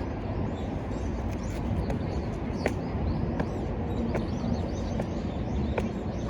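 Open-air background: a steady low rumble with a few short, high bird chirps and ticks scattered through it.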